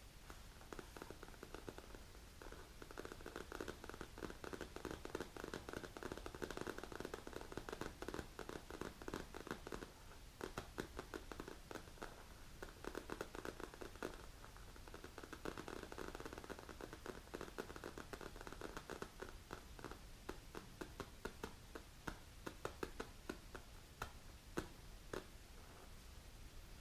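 Long polished fingernails scratching and tapping on a black leather-look hand-rest cushion: a fast run of light scratches and clicks with short pauses, turning into more separate taps in the last few seconds.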